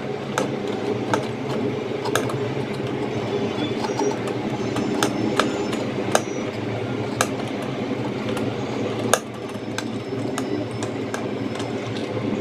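Irregular clicks and light knocks from small objects being handled on a desk, over a steady low hum.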